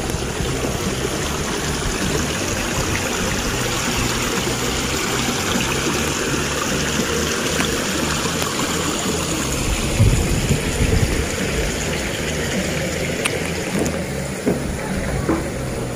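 Small stepped rock waterfall trickling and splashing into a garden fish pond, a steady rush of water. A brief low bump comes about ten seconds in.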